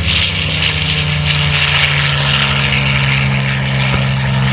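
Extra 330SC aerobatic monoplane's six-cylinder Lycoming piston engine and propeller droning steadily in flight.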